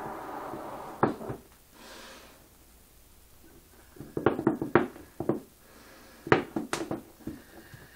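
Scattered knocks and clatters of hard objects: one near the first second, then two quick clusters about four and six seconds in.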